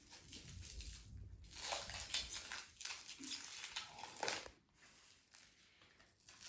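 Packaging being handled and pulled open: irregular crinkling and rustling that stops about two-thirds of the way through.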